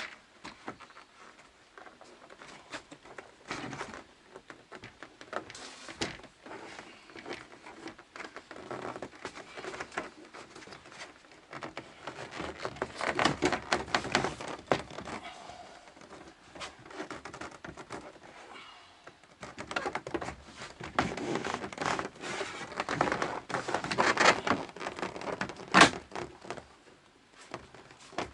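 Handling noise: irregular rustling and crinkling with many small clicks and knocks, busier in two stretches, with one sharp click near the end.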